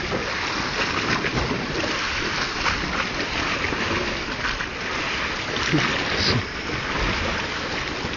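Steady rushing of wind on the microphone over the wash of the sea against rocks.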